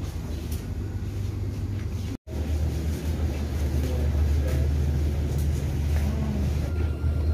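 Steady low rumble and hum of an airport boarding jet bridge while walking through it. The sound cuts out for an instant about two seconds in, and the rumble is louder after the break.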